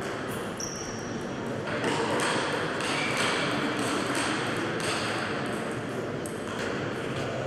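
Table tennis ball being struck back and forth in a rally, sharp clicks of ball on bat and table, about two a second.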